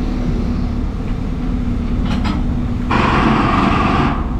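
Diesel engine of a container lorry running low as the lorry reverses slowly. About three seconds in comes a sharp hiss of compressed air from its air brakes, lasting about a second.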